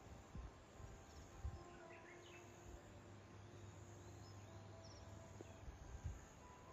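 Near silence: faint outdoor ambience with a few faint, short high chirps and occasional soft low thumps.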